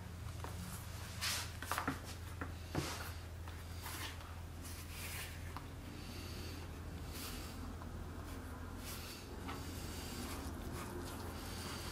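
Hands flexing and folding a heavy vegetable-tanned leather holster blank, with a few brief scuffs in the first three seconds, then a damp sponge rubbing over the leather's flesh side near the end, over a steady low hum.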